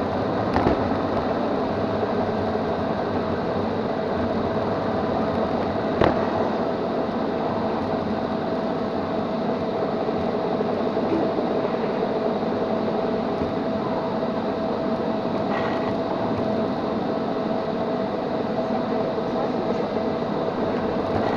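Neato XV-21 robot vacuum running as it roams, a steady whirring with a constant whine. There are two sharp knocks, about half a second in and about six seconds in.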